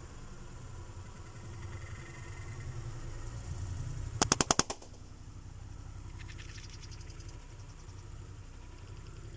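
Car engine running at a low, steady rumble as the car rolls slowly, then about four seconds in a rapid run of sharp cracks lasting about half a second, the sound of a tyre crushing something brittle. A few faint ticks follow.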